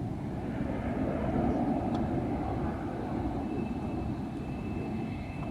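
Jet engines of a Boeing 777-300ER airliner, its GE90 turbofans, giving a steady low rumble. A thin steady whine joins in about three and a half seconds in.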